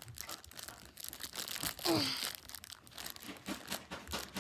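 Shiny plastic wrapper of a small toy package crinkling and tearing as it is worked open by hand, in irregular crackles, with a short vocal sound about two seconds in.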